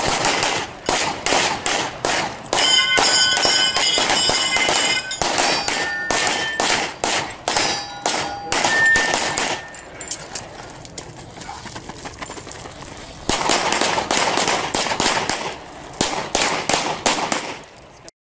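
Fast strings of competition pistol shots, with steel targets ringing when they are hit. A quieter stretch of a few seconds comes a little past halfway, and then the shooting picks up again.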